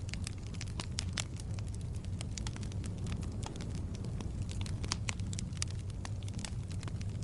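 Wood fire burning, with frequent sharp, irregular crackles and pops over a steady low rumble of the flames.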